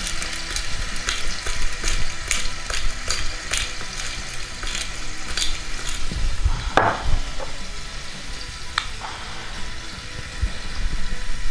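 Diced steak sizzling and crackling in hot oil in a saucepan, while a hand pepper mill is twisted over it through the first half, adding a run of irregular grinding clicks.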